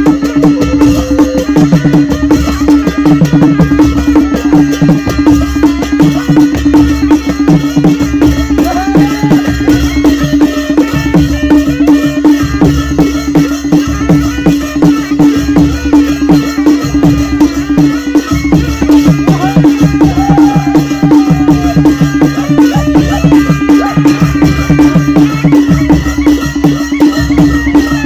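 Nepali panche baja (naumati baja) ensemble playing a folk dance tune: dholaki and damaha drums beating a steady rhythm with jhyali cymbals clashing, under a loud held note that runs unbroken.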